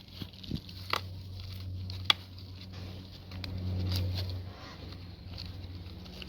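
Faint handling sounds, light rustles and a few short clicks with the sharpest about two seconds in, over a low steady hum.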